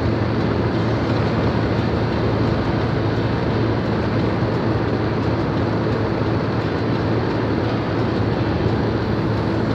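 Steady drone of a moving vehicle heard from inside: road and engine noise with a constant low hum, unchanging throughout.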